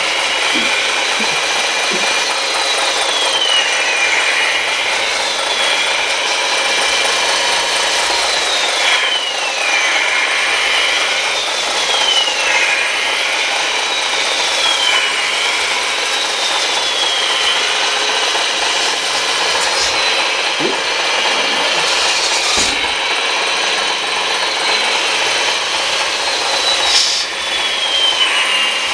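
Electric motors of radio-controlled construction machines running under a steady grinding, rasping noise. Their whine keeps climbing and then sliding down over a second or two as the machines speed up and slow, with a few sharp clicks.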